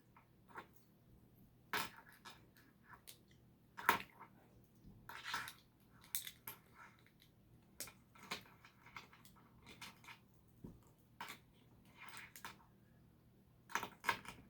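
Plastic LEGO pieces being handled: scattered light clicks and clatter, irregular, with a couple of short rustling stretches around five and six seconds in.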